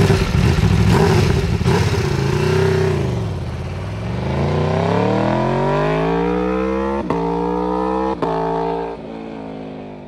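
Sport motorcycle engine revving hard, dipping briefly, then climbing steadily in pitch as it accelerates, with two sharp cracks later on, before the revs drop and the sound fades away at the end.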